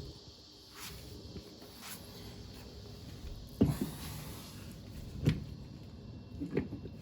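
Scattered clunks and knocks of metal parts and tools being handled while a MerCruiser Alpha One stern drive is fitted to the boat. There are five distinct knocks, the second and third from last the loudest.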